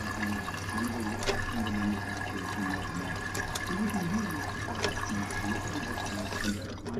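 Toilet tank refilling through a newly installed fill valve: a steady hiss of running water with a thin whistling tone. It cuts off suddenly near the end as the valve shuts at the set water level.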